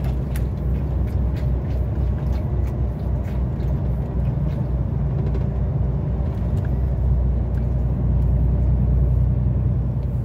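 Loaded heavy truck driving, heard inside the cab: a steady low drone of diesel engine and road noise, with scattered light ticks and rattles. It gets slightly louder about two-thirds of the way through.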